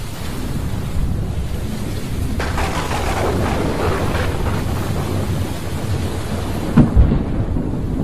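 Thunderstorm with rain: a continuous low thunder rumble over the hiss of rain. A crackling peal of thunder builds about two and a half seconds in, and two sharp cracks come close together near the end.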